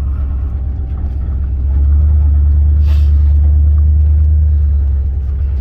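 Low, steady drone of a vehicle's engine and road noise heard from inside the cab as it drives, growing louder about two seconds in. One short sharp noise cuts through about halfway.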